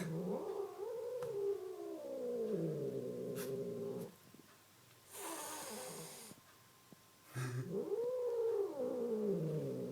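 Angry cat yowling: a long, drawn-out warning yowl that rises and falls in pitch, a short hiss about five seconds in, then a second long yowl near the end.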